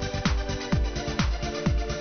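Electronic dance music: a steady kick drum, about two beats a second, under held synth chords.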